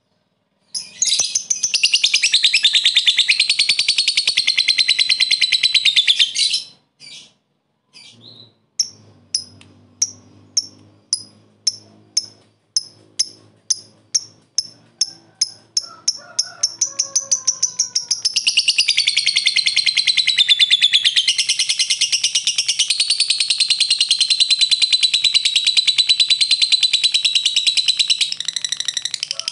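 Lovebird 'ngekek': a long, rapid, high-pitched chattering trill. It breaks off into a run of separate sharp chirps, about three to four a second and quickening ('ngetik'), then goes back into another long chattering trill.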